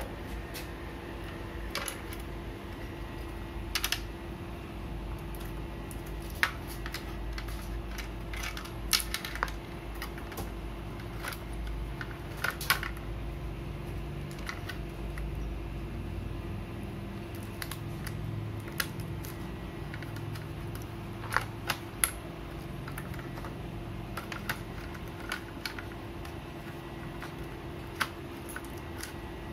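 Irregular sharp clicks and light taps of a laptop motherboard being handled and seated into its plastic bottom case, with cable connectors pressed in, over a steady hum.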